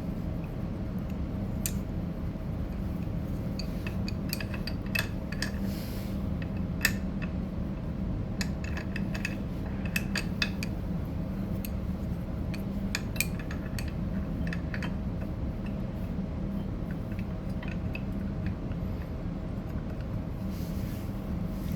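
Small metal clicks and clinks as motorcycle brake pads and caliper parts are handled and fitted, scattered irregularly and thickest in the middle. A steady low hum runs underneath.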